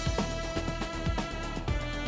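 Background music with a steady drum beat and held notes.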